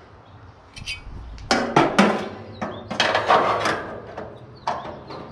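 Metal tube burner knocking and rattling against the gas grill's steel firebox as it is set into place by hand: a run of sharp metal clanks, loudest about one and a half seconds and three seconds in.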